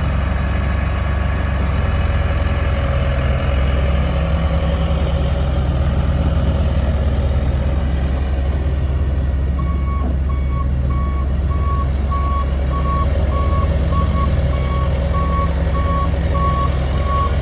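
Case 580M Series 3 loader backhoe's diesel engine running steadily; about ten seconds in its reversing alarm starts beeping, about two beeps a second, as the machine backs up.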